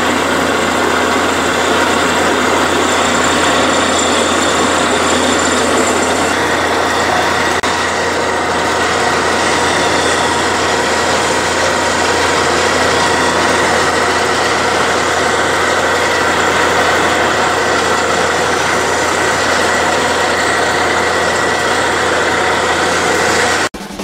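Diesel engines of a truck-mounted borewell drilling rig and its compressor truck running steadily, a constant loud hum and noise with no distinct hammer beats. Near the very end it cuts off abruptly.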